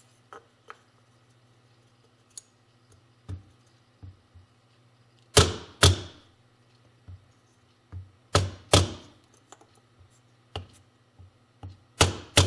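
A mallet strikes a block of wood to drive a transmission output shaft oil seal into a Yamaha YL1 engine case. There are scattered light taps and three pairs of harder blows, the last pair near the end.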